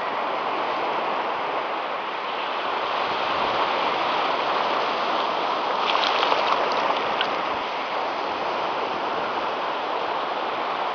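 Small waves washing onto a sandy beach, a steady rush of surf. A few light clicks come in a short cluster about six seconds in.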